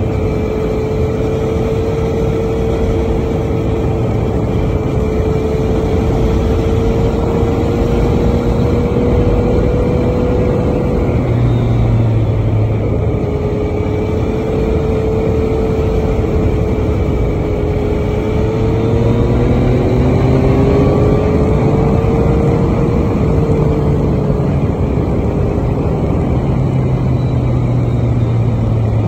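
Yamaha XSR900's inline three-cylinder engine running at cruising speed, its pitch drifting slowly up and down with the throttle. Heavy, steady wind and road noise lie over it.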